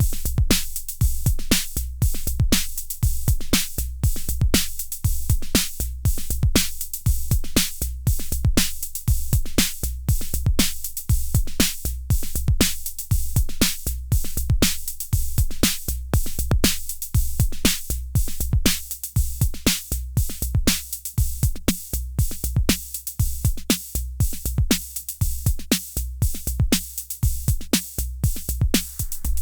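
IK Multimedia UNO Drum, a hybrid analog/PCM drum machine, playing a looping beat at a steady tempo. A deep analog kick booms under dense, crisp high ticks and hits.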